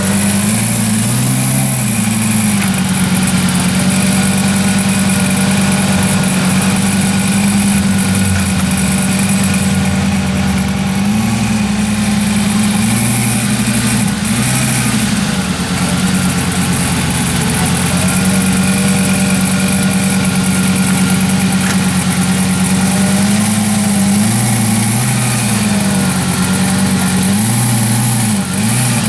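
Lamborghini Gallardo's V10 engine running at a steady idle, loud, with the revs wavering up and down in two stretches, about a third of the way in and again near the end.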